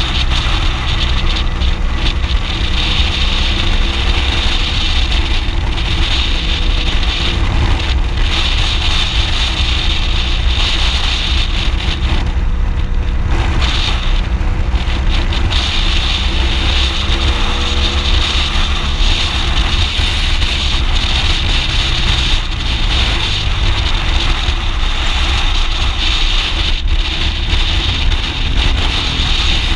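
BMW R 1200 GS Adventure's boxer-twin engine running under way, its pitch rising and falling with the throttle, under heavy wind noise on the microphone. The rush eases briefly about halfway through.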